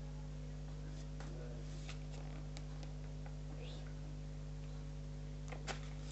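Steady low hum with a few faint clicks and light rustles of small handling, the clearest two close together near the end.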